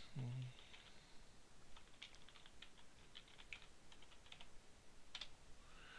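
Faint keystrokes on a computer keyboard: a run of about a dozen irregular taps as a password is typed, after a brief low murmur of a man's voice at the start.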